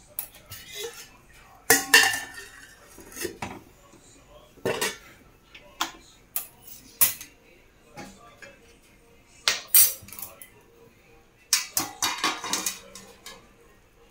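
Stainless steel cookware clanking: pots, lids and a ladle knocking together in a string of separate sharp clinks, each with a short ring.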